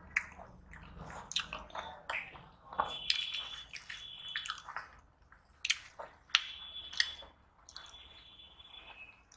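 Close-miked mukbang eating sounds: wet chewing and lip smacks with sharp clicks and squishes as soft fried puri is torn and eaten with curry by hand.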